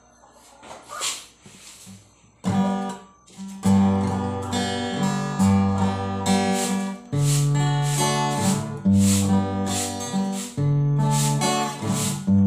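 Steel-string acoustic guitar strummed in chords, the introduction to a song. After a low start with a brief noise about a second in, the strumming comes in about two and a half seconds in, turns full and steady a second later, and changes chord twice.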